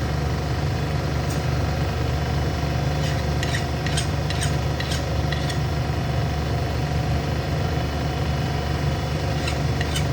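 Connecting-rod grinding machine's motor running steadily with a low drone, with a few light metallic clicks about halfway through and again near the end.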